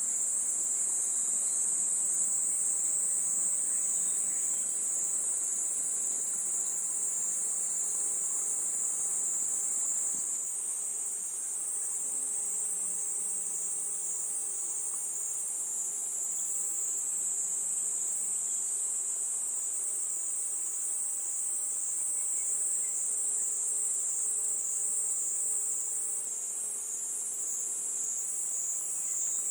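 A steady, dense chorus of crickets: a high-pitched trill that never breaks.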